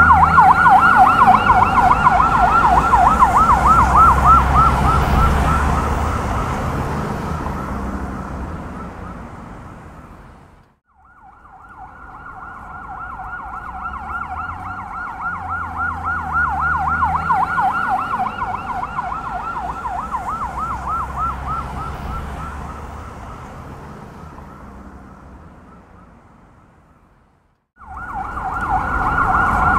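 Police car siren in a fast warble, loud at first and fading away, over low traffic rumble. It drops to silence about ten seconds in, rises and fades again, goes silent a second time, and comes back loud just before the end.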